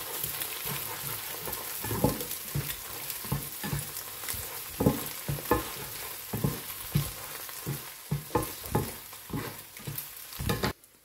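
Egg sizzling in a frying pan as a spatula scrapes and knocks against the pan, breaking it into scrambled egg, about two strokes a second. The sound stops suddenly near the end.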